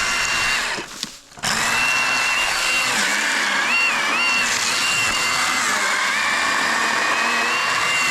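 Milwaukee M18 FUEL cordless handheld chainsaw running at speed with a steady high whine. It stops briefly about a second in, then starts again, and the pitch dips a few times in the middle.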